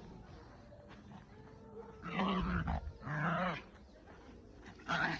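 Small Pomeranian–Chihuahua mix dog growling in excited play over a ball. There are two long growls about two seconds in, back to back, and one short one near the end.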